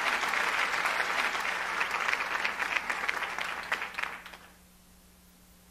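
Audience applauding, many hands clapping, dying away about four seconds in to a faint low steady hum.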